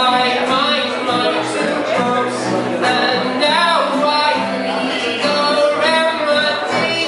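Live music: a singer with instrumental accompaniment, performed in a large room.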